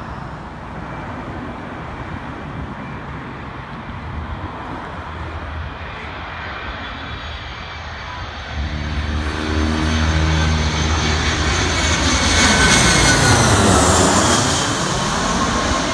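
Boeing 737-500 passing low overhead on final approach, its CFM56-3 turbofans growing louder from about halfway through. They are loudest as it passes over, and their whine drops in pitch as it goes by.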